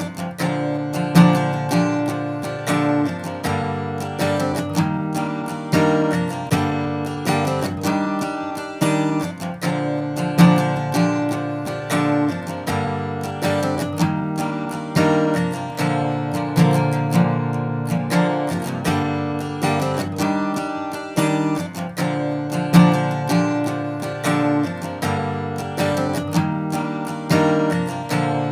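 Guitar loop: chords played in a steady rhythm, one pattern repeating over and over with no vocals.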